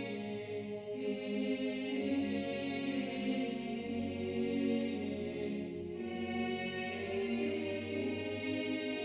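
Background music of long held tones that shift every few seconds.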